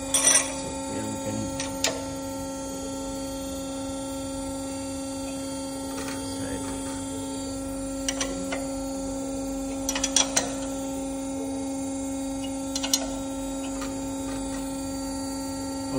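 Steady electrical hum of machine-shop equipment, with a few sharp metallic clicks and taps from the clamps and tools on the milling-machine table, the loudest just after the start and around ten seconds in.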